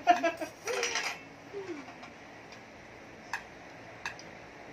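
A few light, sharp clicks of a fork and spoon against a serving dish and plate over a faint steady room hiss. A short burst of voice or laughter comes right at the start.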